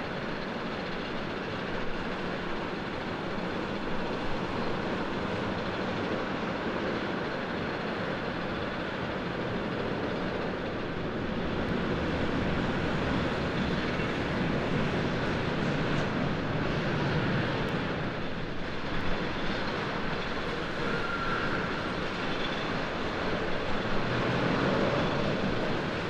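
Steady airport apron noise: aircraft engines and ground vehicles running.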